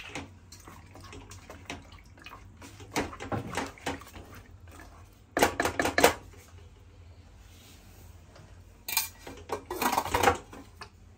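Wooden spatula stirring and scraping wet mutton and masala in a stainless steel pressure cooker, with clattering knocks against the pot, loudest a little before halfway. Near the end the cooker's lid is set on and clicked shut.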